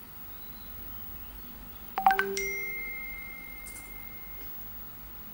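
WhatsApp Web message notification chime: a quick run of bright pings about two seconds in, leaving a high tone and a lower tone ringing on and fading over about two seconds.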